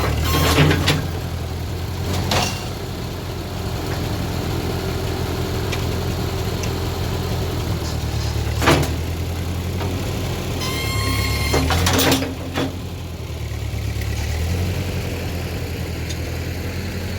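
Sawmill engine running steadily at idle, with a few sharp metal clanks and a quick run of clicks about eleven seconds in.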